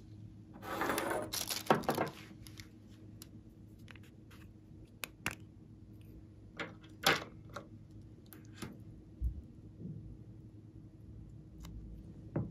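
Hard plastic capsule shells handled and opened: a brief rattling scrape about a second in, then a string of sharp plastic clicks and taps, the loudest about two seconds in.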